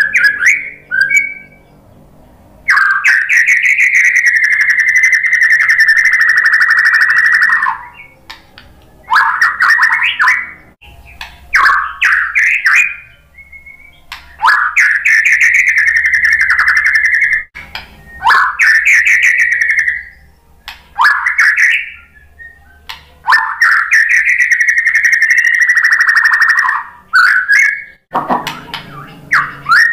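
White-rumped shama singing: three long, fast rattling trills of about five seconds each, with shorter choppy phrases and brief pauses between them.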